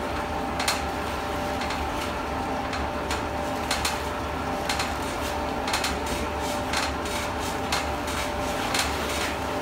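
Raffia plastic granule-making machinery running with a steady hum, broken by irregular sharp clicks and knocks about once a second.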